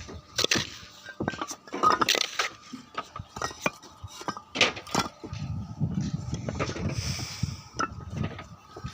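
Irregular hard clinks and knocks of roof-tiling work, tiles and tools striking one another as they are handled and set.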